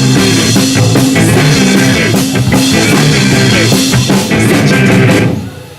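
Live rock band playing the last bars of a song, with drum kit, guitar and bass, ending abruptly a little over five seconds in.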